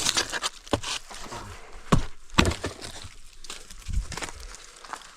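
Firewood being cut with a hand saw: quick back-and-forth strokes for about the first second, then two sharp wooden knocks about two seconds in, followed by a few softer thuds of wood being handled.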